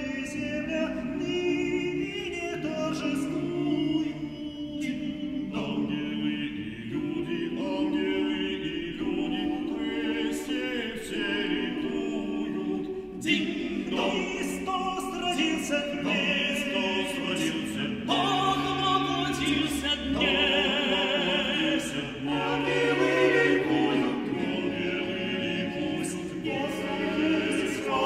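Male vocal ensemble of nine voices singing a Christmas carol a cappella, several parts moving together in harmony.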